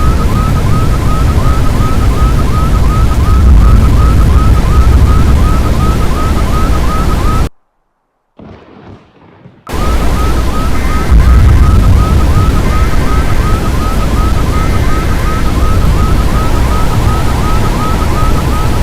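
Loud, steady rumbling noise with a short electronic chirp repeating about three times a second. The sound cuts out for about two seconds in the middle; after it, short beeps sound three times about two seconds apart, and a steady tone comes in near the end.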